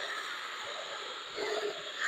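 Plastic headlight lens being polished with restoration compound: a steady scrubbing hiss, with a brief louder patch about one and a half seconds in.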